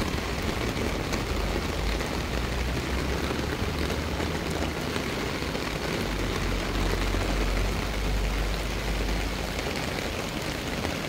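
Steady heavy downpour hissing onto a flooded park and wooden boardwalk during a typhoon, with a low rumble underneath that swells about six to eight seconds in.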